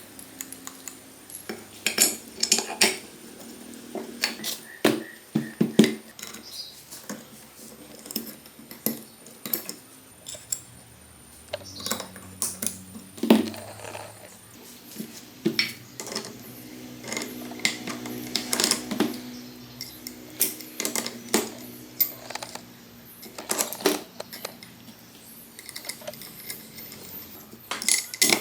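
Small metal engine parts and hand tools clinking, tapping and knocking at an irregular pace, the sounds of the engine being worked on by hand.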